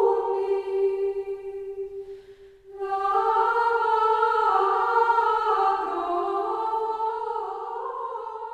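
Background music of slow unaccompanied singing in long held notes, breaking off briefly about two and a half seconds in before resuming.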